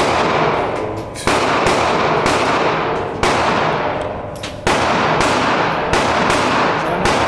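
A string of gunshots at an indoor shooting range, irregularly spaced, several a second apart at times, each one ringing on in the room's echo.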